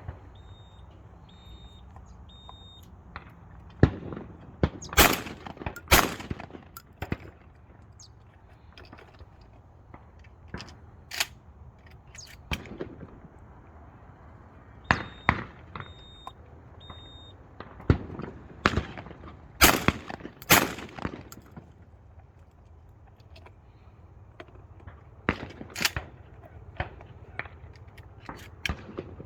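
Franchi Affinity Elite semi-automatic 12-gauge shotgun fired at sporting clays: two pairs of shots, each pair under a second apart, with the pairs about fifteen seconds apart. Fainter bangs come in between, and a run of short, even, high beeps sounds near the start and again about halfway.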